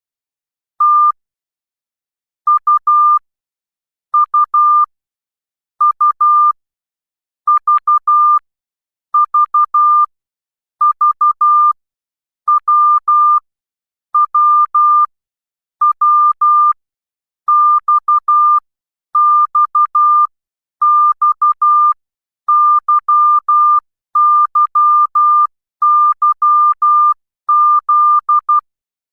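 Morse code sent as a single steady beep a little above 1 kHz, keyed in short dots and longer dashes. One character sounds roughly every 1.7 seconds, about seventeen in all.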